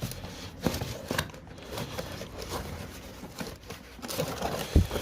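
Paper and cardboard packaging rustling and crinkling in irregular bursts as car parts are unpacked and handled, with a sharp knock shortly before the end.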